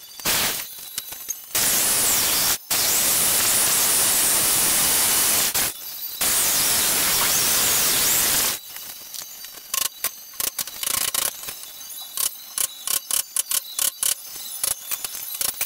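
Corded power tools cutting into a wooden table leg in several runs broken by short pauses, an electric drill and then a jigsaw. From about eight and a half seconds in, a quick, irregular series of mallet blows on a chisel chopping out the wood.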